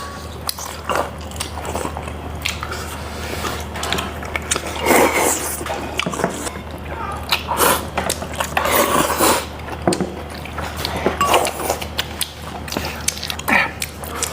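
People eating a chicken and glass-noodle stew, chewing and biting, with irregular short mouth noises and a few light clicks.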